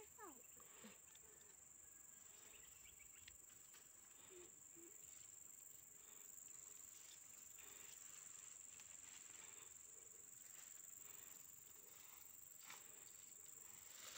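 Faint, steady high-pitched drone of insects, with a few soft clicks scattered through it.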